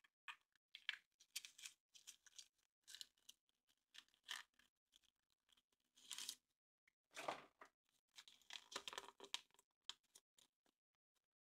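Foil wrapper of a Kinder Surprise egg being torn and crinkled open, in short, irregular rustles and crackles.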